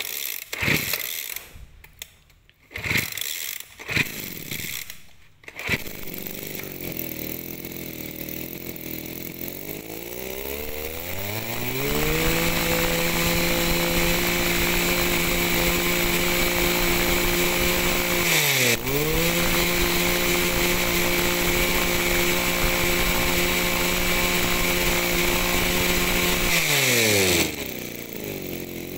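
Small 24 cc two-stroke brush cutter pull-started with a few tugs. It catches and idles, then is throttled up to a steady high-revving whine, with one brief dip and recovery partway through. Near the end the throttle is let go and it drops back toward idle.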